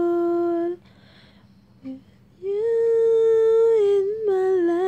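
A woman's unaccompanied singing voice, holding long notes with no words: one held note ends under a second in, then after a pause of about a second and a half another long note begins and steps down in pitch near the end.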